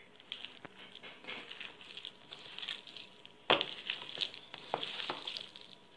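A hand squeezing and kneading a wet mixture of minced meat, gram flour, egg and spices in a bowl: irregular soft squelches, with a louder one a little past halfway.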